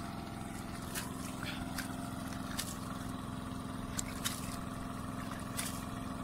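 Steady engine hum from an unseen motor, with a handful of light clicks and small splashes as a caught fish is handled at the water's edge.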